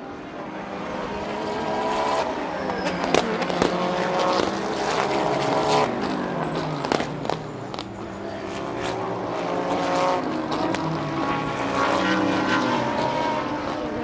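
A pack of GT race cars passing one after another, several engines overlapping, their pitch rising and falling through gear changes and lifts. A few sharp cracks stand out between about three and seven seconds in.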